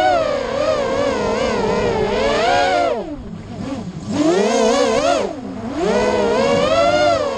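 Racing quadcopter's motors and propellers whining, the pitch rising and falling quickly with the throttle. Twice the whine drops sharply and picks up again, once about three seconds in and again around five and a half seconds.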